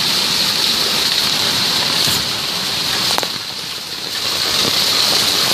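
Heavy rain pouring down, a really loud steady hiss, with a few faint knocks about two, three and four and a half seconds in.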